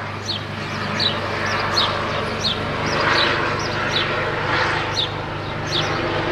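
Police helicopter, a Eurocopter EC145, flying overhead with a steady rotor and turbine drone that grows a little louder as it comes over. A bird calls repeatedly on top of it, short falling chirps about every three quarters of a second.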